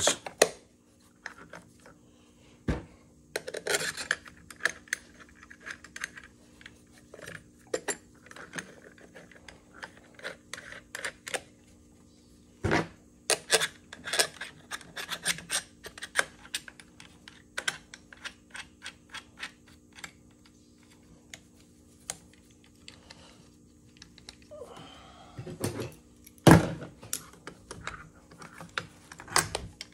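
Irregular light metal clicks and taps, with a few louder knocks, from handling the parts of an old GM starter motor as its front housing is lined up and the through-bolts are slid in. A faint steady hum sits underneath.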